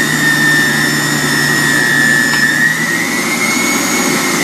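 Uber Appliance UB-CJE 800 W centrifugal juicer motor running with a steady high whine, being tried in pulse mode. About three seconds in the pitch rises slightly and holds as the motor speeds up.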